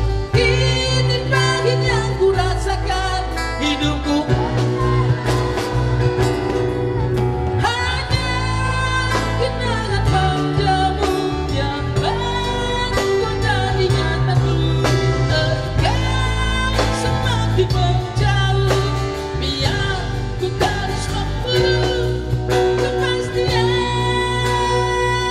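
Male rock vocalist singing a Malay rock song live into a microphone over loud amplified electric guitar backing, with a heavy, steady low end.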